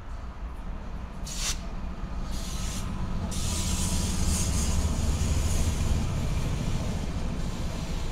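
Kansas City Southern diesel freight locomotives passing close by, their engines running with a deep rumble that grows louder to a peak about midway through as they go past. Two short hissing bursts sound in the first three seconds.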